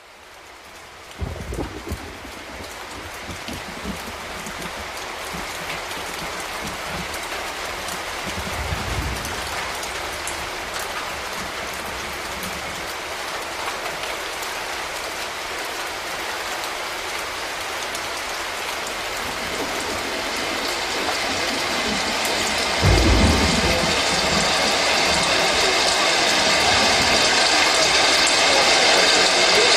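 Recorded rain-and-thunder sound effect: a steady rain hiss that grows gradually louder, with low rolls of thunder about a second and a half in and around nine seconds in, and a louder thunder clap near twenty-three seconds in.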